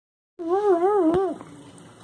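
A wavering vocal cry that starts abruptly about a third of a second in, with a fast, regular wobble in pitch. It lasts about a second and slides down at the end, with a single click just before it fades.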